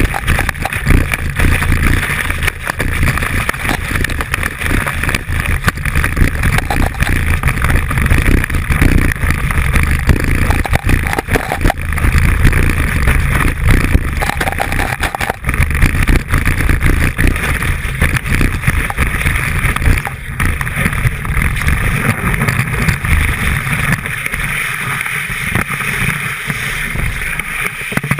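Skis sliding and scraping over packed snow, picked up by a camera mounted on the ski binding: a loud, continuous rushing and rumbling. It eases off after about twenty seconds as the skier slows.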